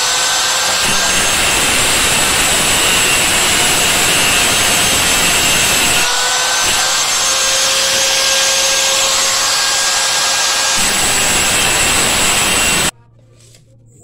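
Electric angle grinder with a cutting disc slicing through sheet metal from an old refrigerator body: a loud, steady grinding rasp over the motor's whine, which stops abruptly near the end.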